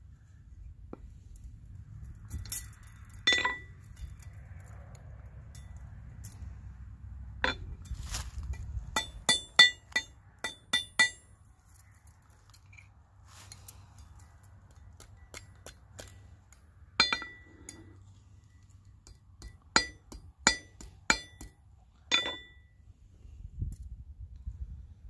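Light hammer taps on metal, each a sharp clink with a short high ring: a few single taps, then a quick run of about half a dozen around ten seconds in, then more spaced single taps.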